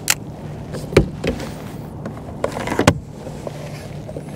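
A plastic folding fish measuring board being grabbed and unfolded, knocking against the kayak. There are a handful of irregular sharp knocks and thumps; the loudest comes about a second in, and another just before three seconds.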